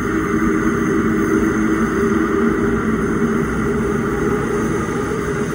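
London Underground 1995 Stock train running through the deep tube tunnel: a steady rumble with a motor hum, easing slightly toward the end.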